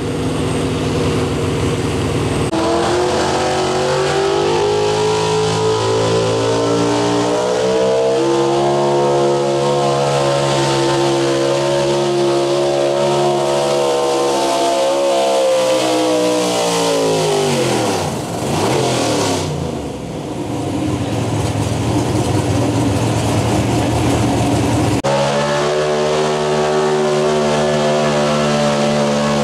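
Pro Stock 4x4 pulling trucks' engines running at high rpm under full throttle as they drag the weight-transfer sled. The engine pitch climbs slowly, then falls sharply about 18 seconds in as the throttle comes off, then rises again.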